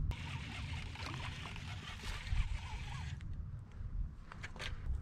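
Wind buffeting the microphone as a steady low rumble, with a few crackling steps through dry bank grass and reeds near the end.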